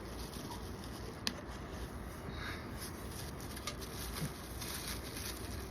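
Faint handling of parts and packaging while unboxing, with one sharp click about a second in.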